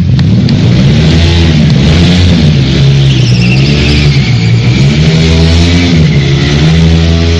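Motorcycle engine running loud and continuous, its pitch rising and falling over and over as the bike circles in a tight loop.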